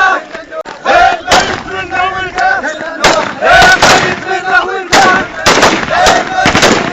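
A crowd of men chanting a hosa in unison, the massed voices rising and falling together. Sharp bangs cut across the chant about ten times, several close together in the second half.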